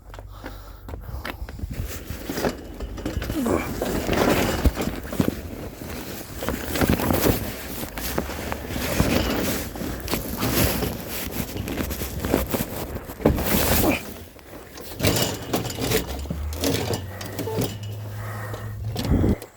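Split firewood being unloaded, the logs knocking, clattering and scraping against each other in many irregular strikes, over a steady low hum.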